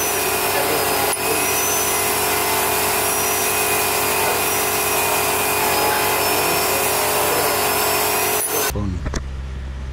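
Corded handheld rotary tool running against a motorcycle rear brake caliper, cleaning the seized caliper's corroded metal for a rebuild. A steady high whine that wavers slightly in pitch as the bit bears on the metal, cut off abruptly near the end.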